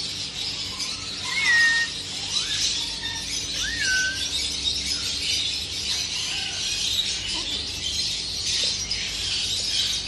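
Steady chirping of caged birds, with two short whistled notes, one about a second and a half in and one about four seconds in.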